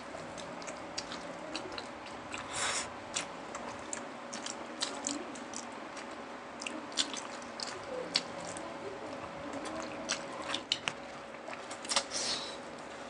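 Close-up mukbang eating sounds of pork leg and rice eaten by hand: wet chewing and biting, with many short smacks and clicks scattered throughout.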